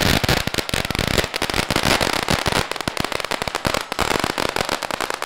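Firecrackers going off in a rapid, continuous crackle of sharp bangs.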